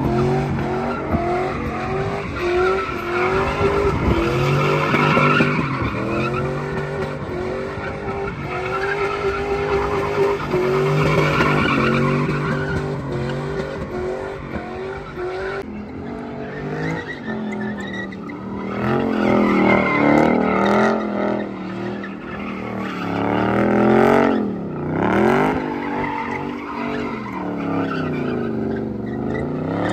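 A pickup truck spinning donuts: its engine held at high revs that bounce up and down in steps while the tyres squeal and scrub on the pavement. About halfway through, the engine sound changes to wide sweeps down and back up as a white Dodge Charger spins donuts, its tyres squealing.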